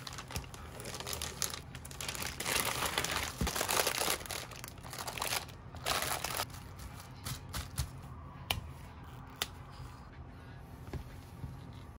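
Plastic zip-top bag and plastic wrap crinkling and rustling as a round silicone mold is handled and pulled out. A few sharp clicks follow near the end.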